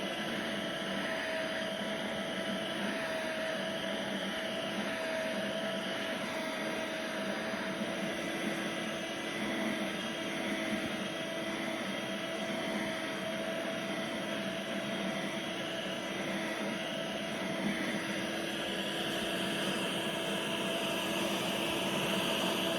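Vacuum cleaner running steadily, its motor giving a steady whine over the rush of air.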